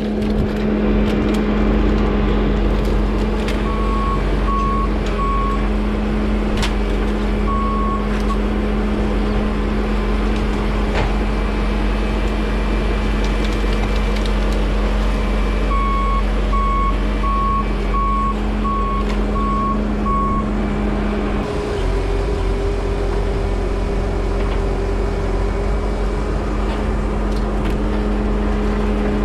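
Skid steer's engine running steadily under work, with its backup alarm beeping in short runs as the machine reverses. The engine note shifts about two-thirds of the way through, and a few sharp clunks come from the machine.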